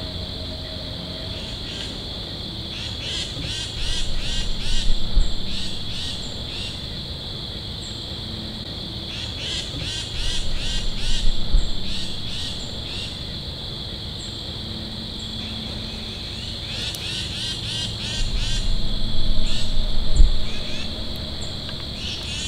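A steady high-pitched chorus of crickets. Over it come three louder bouts of rapid crackling clicks, each a few seconds long, starting about 3, 10 and 18 seconds in.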